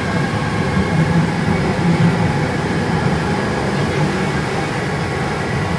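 Ganz-MÁVAG M1 metro car running between stations, heard from inside: a steady low rumble of wheels on the track with a faint high whine.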